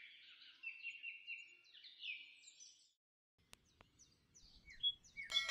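Small birds chirping and twittering in quick repeated notes, cut off suddenly about three seconds in. After a short silence come two sharp clicks like mouse clicks and more chirping, and a bell-like chime starts right at the end.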